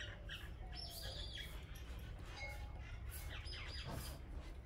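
Birds chirping, a scattering of short high calls, over a low steady background rumble.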